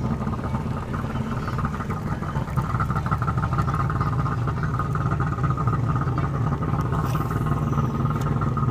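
A small boat engine running steadily close by.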